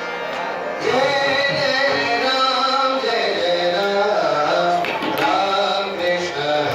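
Marathi devotional bhajan music: a singing voice carries a gliding melody over tabla, growing louder about a second in.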